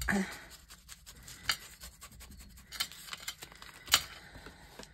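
A sheet of tea-dyed paper crinkling and rustling as hands fold and crumple it, with scattered sharp crackles, the loudest just before the end.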